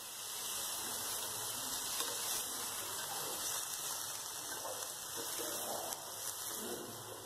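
Shredded boiled chicken sizzling in oil in a nonstick frying pan, a steady hiss from a splash of water just added to the hot oil, as a spatula stirs it.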